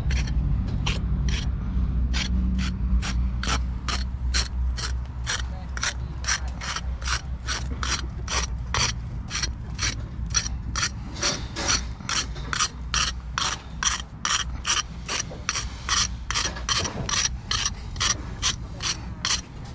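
Steel brick jointer scraping along fresh mortar joints in quick, even strokes, about two to three a second, tooling the joints of new brickwork. A steady low rumble runs underneath.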